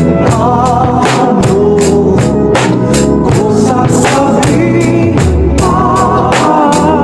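Drum kit played along to a pop ballad, with a male singer holding notes with vibrato over a steady beat of drum and cymbal hits.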